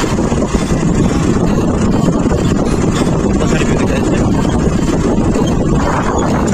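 A vehicle on the move: a steady rumble of engine and road or wind noise.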